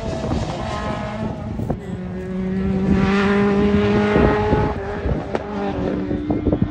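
Hillclimb race car's engine pulling hard up the climb at steady high revs, growing louder to a peak in the middle and then easing off.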